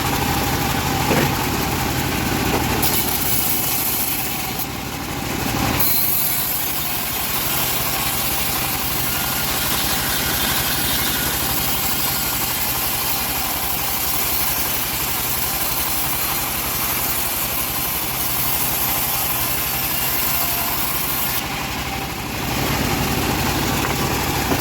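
Engine of a homemade bandsaw sawmill running steadily, with a brief sharp knock about a second in.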